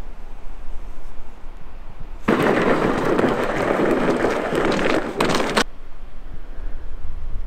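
Plastic sled dragged over snowy ice: a dense crackling scrape that starts about two seconds in and cuts off about three seconds later, over a steady low rumble.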